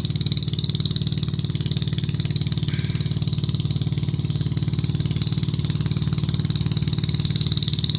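A small engine idling steadily, with a fast, even pulse and a constant hum.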